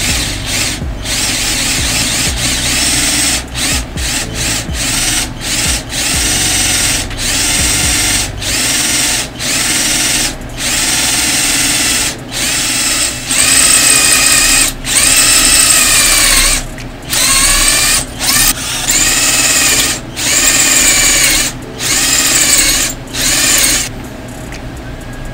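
Cordless drill run against the wall in many short trigger bursts, its motor whine rising in pitch as each burst starts and dropping as it stops. It is louder and higher from about halfway in and stops just before the end.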